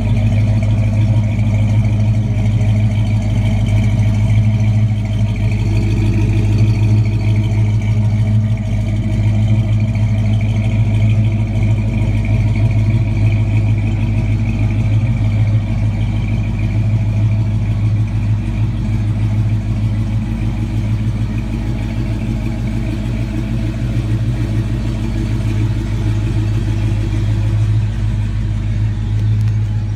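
An engine running steadily, a constant low drone with a strong hum underneath.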